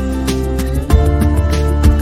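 Background music with a steady beat, led by a plucked guitar, with a chord change about a second in.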